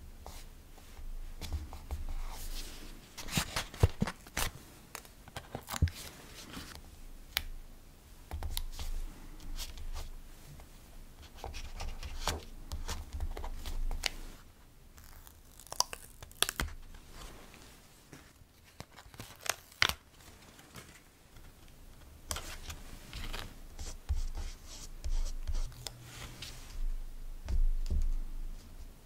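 Stickers being handled with tweezers and pressed onto paper journal pages: crackly peeling and paper rustling, with many small sharp clicks and the rub of fingers smoothing stickers down.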